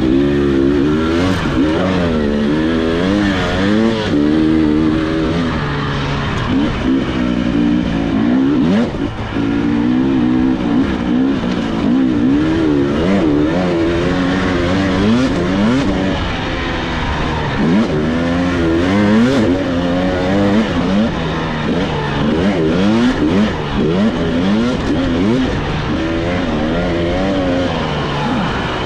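Husqvarna TE300i two-stroke dirt bike engine being ridden hard, its pitch rising and falling continuously as the throttle is opened and shut.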